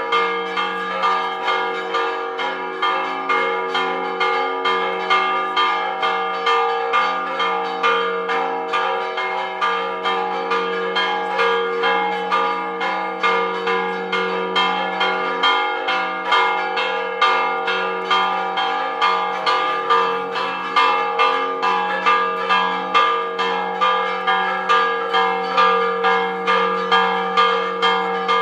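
Church tower bells ringing a Spanish repique: fast, even clapper strikes, with the bells' ringing tones carrying on between them.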